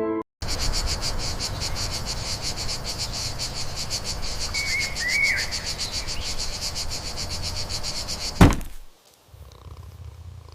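A chorus of calling animals: a fast, evenly pulsing, high-pitched trill with a brief chirp about five seconds in. A sharp thump about eight and a half seconds in cuts it off, leaving a faint low rumble.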